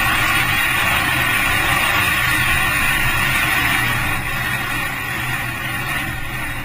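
Renault Mégane RS 265's turbocharged 2.0-litre four-cylinder engine running at speed under heavy wind and road noise, heard from a camera mounted outside the car. About four seconds in the sound drops a little quieter as the car comes off the throttle for a tight bend.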